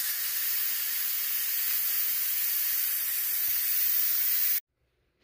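Steam hissing steadily out of a 6-quart Instant Pot's steam release valve, which has been turned to venting for a quick release of pressure after pressure cooking. The hiss cuts off suddenly near the end.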